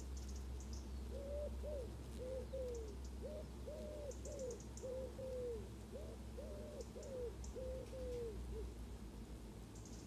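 A bird cooing: a run of about fourteen low, hollow notes over some seven seconds, many of them falling away at the end.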